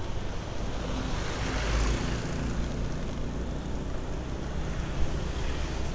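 Motor scooter running along a road, a steady mix of engine and road and wind noise, with a brief swell about a second and a half in, and other traffic in the background.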